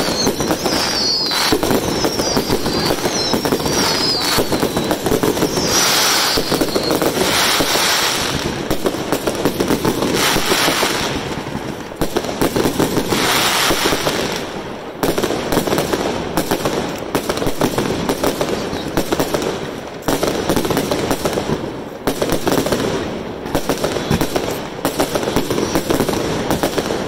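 Aerial fireworks going off in quick succession: a dense, rapid crackle of bursts and pops, with warbling whistles over it for the first few seconds.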